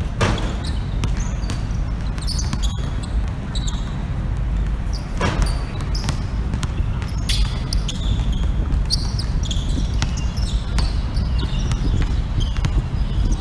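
Basketball dribbled and bouncing on an outdoor court: irregular sharp bounces throughout, with short high squeaks of sneakers on the court surface. A steady low rumble sits underneath.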